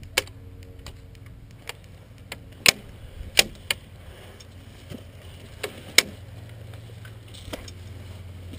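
Irregular sharp cracks of airsoft fire: single shots from airsoft electric rifles and BBs striking cover, about nine in all, the loudest near three and six seconds in.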